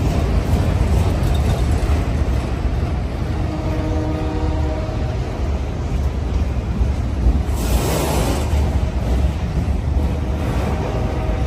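Union Pacific freight train of autorack cars rolling past close by: a steady low rumble of wheels on rail. A brief pitched chord sounds about three and a half seconds in, and a short hiss comes near the eight-second mark.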